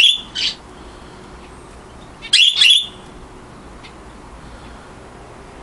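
A caged pet bird giving loud, shrill calls to its flock, in pairs: two short calls at the start and two more about two and a half seconds in.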